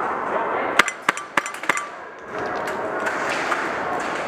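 Airsoft gunfire: a quick string of about five sharp snaps, roughly three a second, about a second in, over a steady background hiss.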